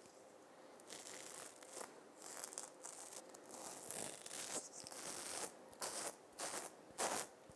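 A razor scraping across stubble in a series of short, raspy strokes, coming closer together toward the end.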